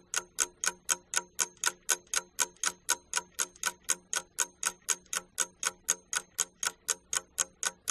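Clock ticking at a steady pace of about four ticks a second, a timer sound running while a task is done.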